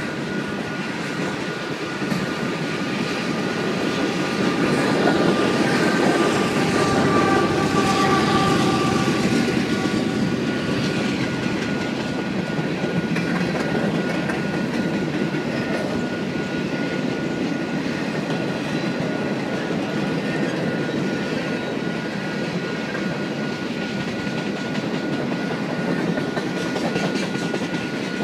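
Freight train cars rolling past: a steady rumble and clatter of steel wheels on the rails, loudest about five to ten seconds in, with a few high ringing tones then.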